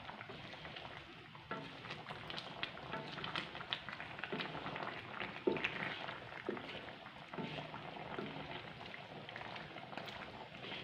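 Wooden spatula stirring stingray curry in a metal wok, with irregular scrapes and knocks against the pan over the simmering, bubbling sauce; one louder knock about halfway through.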